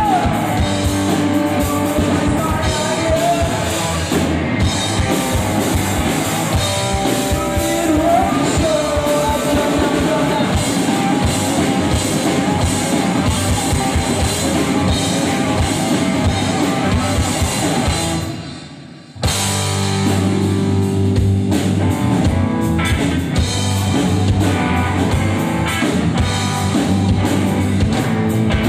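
Rock band playing live: electric guitar, bass guitar and drum kit. About eighteen seconds in the band stops for about a second, then comes back in all together.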